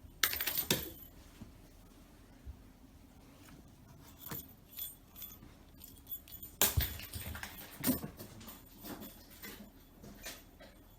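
A cat's toy ball being played with in a game of fetch, giving short sharp clicks and rattles. The loudest clatters come just after the start and again about two-thirds through, with lighter scattered clicks between.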